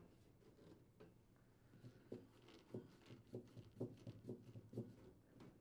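Faint ticks and creaks, about two a second, as a Phillips screwdriver turns a mounting screw into the air conditioner's sheet-metal cabinet.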